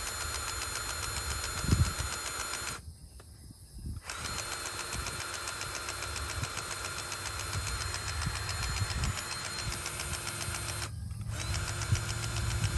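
Skid steer engine running steadily, with a thump just under two seconds in and a brief drop in sound about three seconds in.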